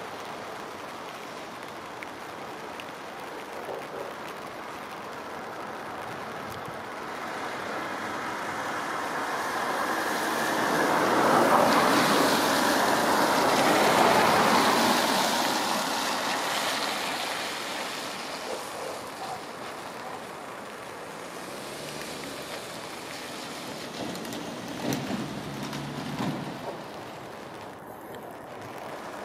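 A road vehicle passing close by, its tyre and engine noise swelling over several seconds and fading away again, over steady outdoor background noise.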